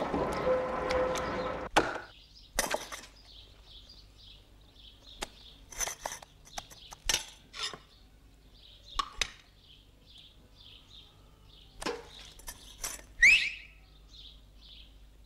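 A concrete mixer truck runs with a loud, dense hum for about two seconds, then drops away abruptly to a faint low hum. Over that come repeated short high bird chirps, a few sharp clicks and knocks, and one loud rising squeak near the end.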